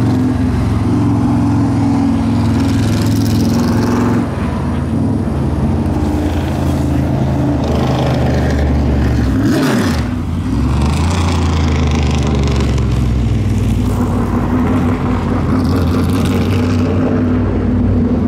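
Vintage modified race car engines running loud and steady, their pitch shifting up and down, with a sharp dip and recovery in engine pitch about ten seconds in.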